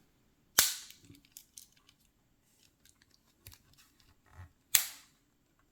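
Two sharp snaps, about four seconds apart, of a Swiss Army knife tool springing open or shut against its backspring, with faint clicks of handling between them.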